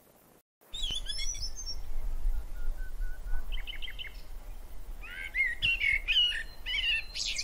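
Common starling singing a varied medley of whistles, a short held whistle, quick clicks and warbling chatter, starting just under a second in.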